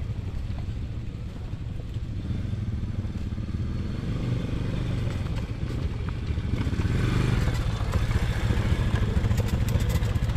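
ATV engine running with a steady low hum under way, growing louder about seven seconds in.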